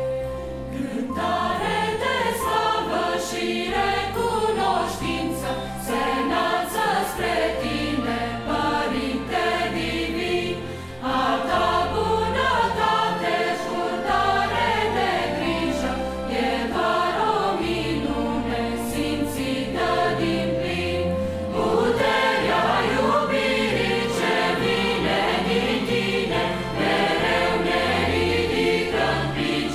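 Children's choir singing a hymn in Romanian to instrumental accompaniment with a steady bass line. The music dips briefly about eleven seconds in, then comes back fuller.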